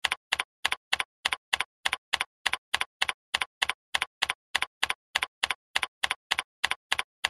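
Keyboard typing sound effect from screen-recording software: about two dozen key presses at a steady three or so a second, each a quick double click, with dead silence between them, as a web address is typed in one character at a time.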